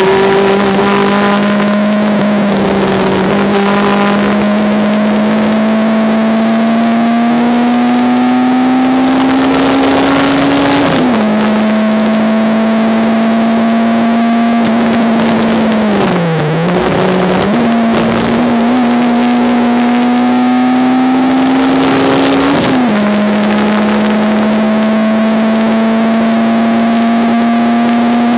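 Honda Civic race car engine heard from inside the car at full throttle. Its pitch climbs steadily through the gears and drops sharply at upshifts about 11 and 23 seconds in. Around the middle the revs briefly fall and recover as the driver lifts. The engine is mixed with heavy wind and road noise.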